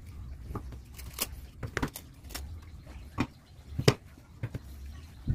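Segmented wooden rings of sonokeling and petai jawa wood knocking and clacking against each other and the tabletop as they are handled and stacked: a series of light, separate wooden knocks, the loudest about four seconds in.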